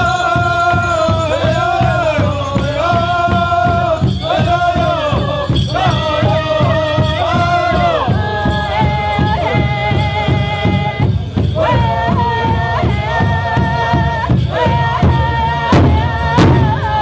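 Powwow drum group: a large drum struck in a steady, even beat while the singers sing high, held phrases that slide down at their ends. Near the end the singing breaks off and a few harder drum strikes come through.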